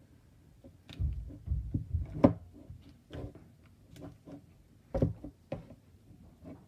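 Thick glue-and-borax slime being stirred and squished in a plastic bowl with a spatula and by hand: soft squelching with several sharp clicks and knocks, the loudest a little over two seconds in and another about five seconds in.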